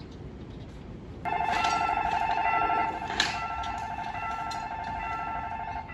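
An electronic bell starts ringing about a second in: a steady, fairly high tone with a fast warble that goes on without a break. It is loudest for its first couple of seconds and then a little quieter. A single sharp click sounds about three seconds in.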